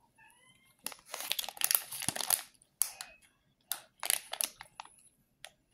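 Plastic candy packet crinkling as it is handled and opened, in several separate bursts of rustling.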